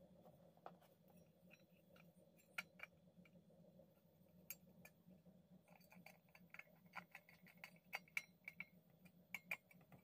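Faint, scattered small clicks and metal chinks of a screwdriver tightening the nut that holds the switch in a table fan motor's rear cover.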